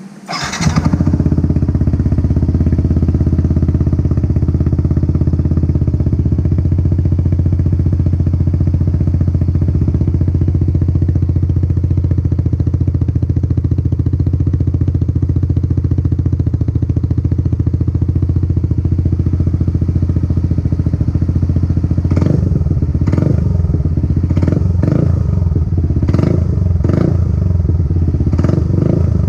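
Yamaha NMAX 155 scooter's single-cylinder engine breathing through a PR2 aftermarket exhaust with the silencer removed: it starts up about half a second in and idles steadily. From about two-thirds of the way through, the throttle is blipped repeatedly.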